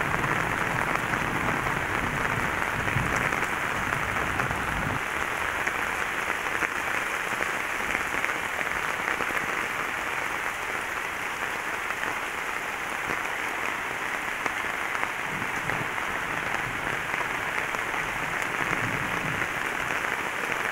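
Heavy tropical downpour falling steadily onto flooded garden water and leaves, a constant, even hiss of rain.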